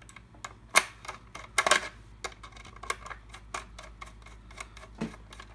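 Irregular clicks and taps of metal and plastic as a Western Electric 500 telephone is closed up, its metal base plate seated on the housing and the screws worked by hand. The sharpest click comes about three quarters of a second in, with a quick cluster near the two-second mark, then lighter ticks.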